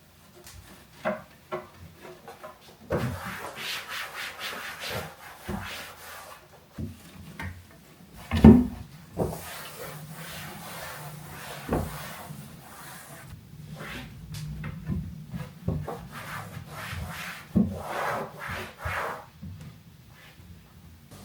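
A surface being scrubbed and wiped by hand, in several stretches of rubbing, with scattered light taps and one sharp knock about eight and a half seconds in, the loudest sound.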